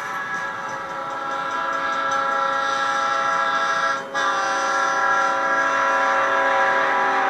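Train horn sounding a long chord of several steady notes, briefly broken about four seconds in, then held again.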